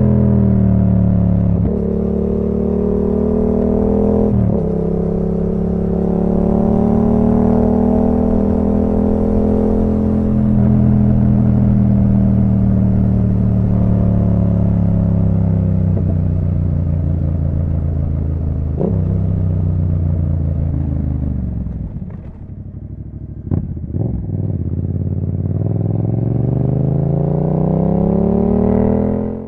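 Yamaha MT-07's parallel-twin engine through an Akrapovic full exhaust, under way and shifting through the gears, with several short breaks in the engine note at the changes. About three-quarters of the way in it slows to a low, quieter note with a couple of sharp clicks. Then it revs up again as it accelerates, and the sound cuts off suddenly at the end.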